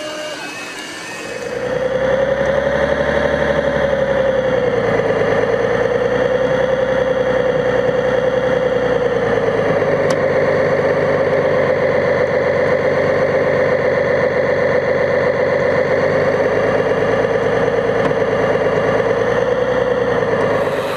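Steady, loud engine-like drone of a running RC construction machine, picked up close by a camera mounted in its cab; it starts about a second and a half in, its pitch sags and recovers a few times, and it cuts off at the end.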